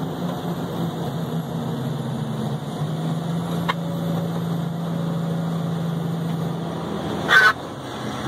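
Pickup truck engine and road noise heard from inside the cab while driving, a steady low hum that dips in pitch for a moment about a second in. Near the end, a short loud burst of noise.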